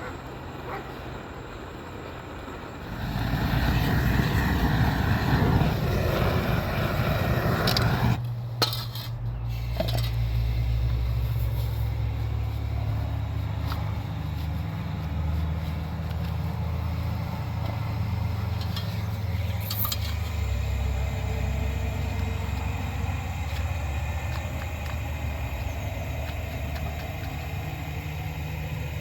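An engine running steadily with a low hum, after a louder rushing stretch in the first few seconds.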